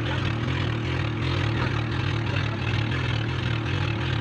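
Outrigger boat's (bangka) engine running steadily under way, with a low droning hum and a hiss of water and wind over it.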